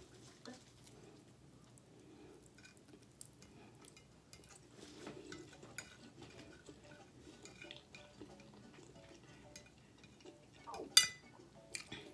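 Metal fork clinking and scraping on a ceramic dinner plate, with scattered small clicks and one sharp, loud clink about eleven seconds in as the fork is set down on the plate.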